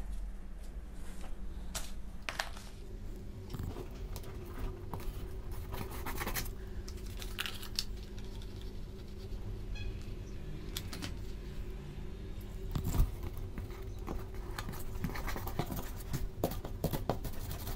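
Scraping, rustling and light taps of cardboard pieces being handled, glued with a hot glue gun and pressed onto a cardboard mask, with one louder knock about two-thirds of the way through. A low steady hum runs underneath.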